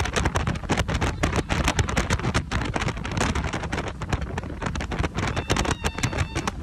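Wind buffeting the microphone in rapid, irregular gusts, over the low rumble of outboard-powered boats running past at speed.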